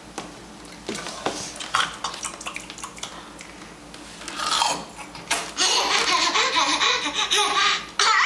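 Laughter, short at first and then running on loudly through the second half. A few light knocks sound in the first two seconds.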